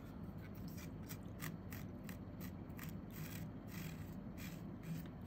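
A cotton swab wet with isopropyl alcohol scrubbing flux residue off the soldered pins of a circuit board: faint, irregular scratchy strokes.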